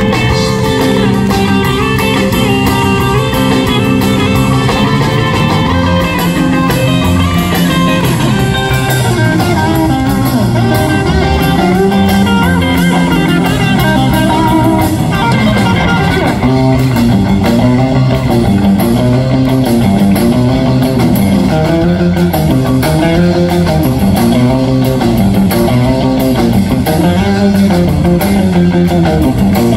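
Live rock band playing an instrumental passage on electric guitars, electric bass and drum kit. In the second half, notes bend up and down in a repeating pattern.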